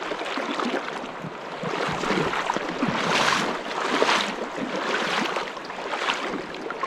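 River water rushing and splashing, with louder swells now and then.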